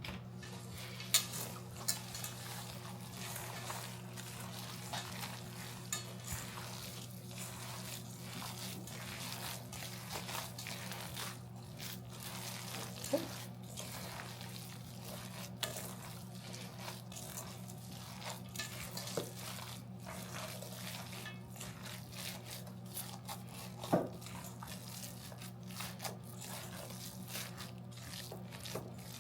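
Gloved hands kneading raw ground-beef meatloaf mixture in a bowl: irregular wet squishing and rubbing, with a few sharper knocks, over a steady low hum.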